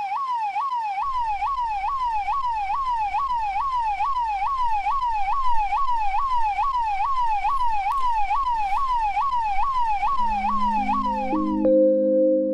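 Electronic siren in a fast yelp, its pitch sweeping up and down about two and a half times a second, cutting off suddenly near the end as sustained low music tones come in.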